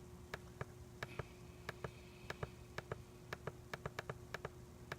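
Irregular sharp clicks, two or three a second, from a computer mouse or keys being used to step through trail camera photos, over a steady low electrical hum.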